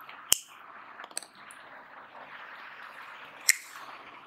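Marker writing on a whiteboard: a few sharp taps as the tip strikes the board, about a third of a second in, twice just after one second and again near the end, over a steady faint room hiss.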